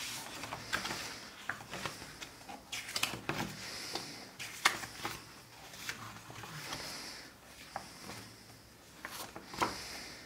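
Paper pages of a large picture book being turned one after another by hand: soft swishes about every three seconds, with small sharp taps and rustles in between.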